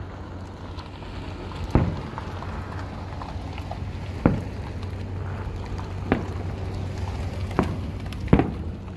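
Aerial fireworks shells bursting with about five sharp booms spread irregularly over several seconds, over a steady background hiss.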